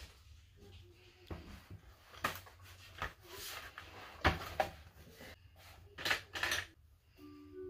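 Scattered knocks and clicks of things being handled in a small room, about seven sharp ones, with soft mallet-percussion music coming in near the end.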